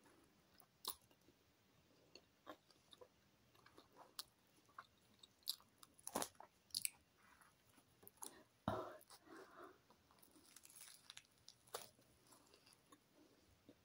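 Faint biting and chewing of a chicken and lettuce baguette: scattered soft crunches and mouth clicks, with one louder crunch a little past halfway.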